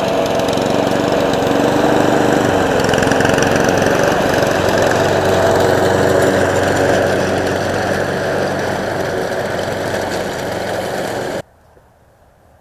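Motor engine running steadily at a constant level, then cutting off abruptly near the end, leaving only a faint low hum.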